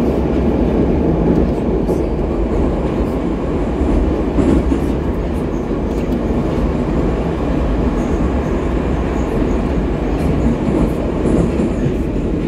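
Moscow metro train running between stations, heard from inside the carriage: a loud, steady rumble with occasional faint clicks.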